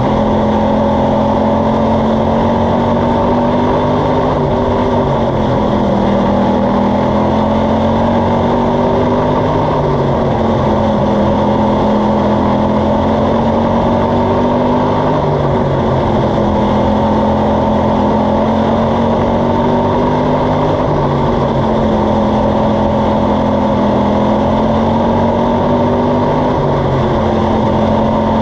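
Jr. Slingshot dirt-track race car's engine running hard, heard from the cockpit. Its pitch dips and climbs again about every five seconds as the car lifts for the turns and accelerates down the straights of the oval.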